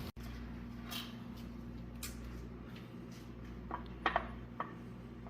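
A few faint metallic clicks and taps, like hand tools working on engine parts, over a steady low hum. The two sharpest clicks come close together about four seconds in.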